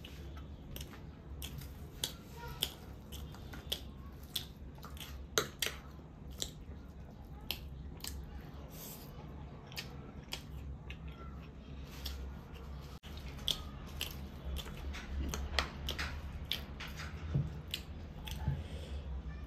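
A person eating close to the microphone: irregular crisp crunches and clicks of biting and chewing, over a steady low hum.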